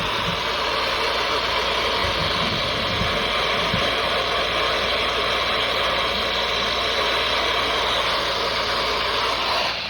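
Steady hiss of radio static from a receiver tuned to a weak or noisy signal, even and unbroken throughout.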